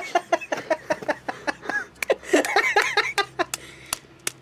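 Wheel-bearing grease squelching as a front wheel bearing is pressed again and again into a glob of it in a gloved palm to pack it: a quick run of short wet squishes, with a few sharp clicks near the end.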